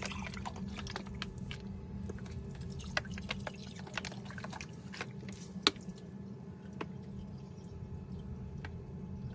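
2018 Astra engine running with a steady low hum and irregular sharp ticks and clicks, busier in the first few seconds, with one louder click about five and a half seconds in. The engine is misfiring, which the owner puts down to a broken piston.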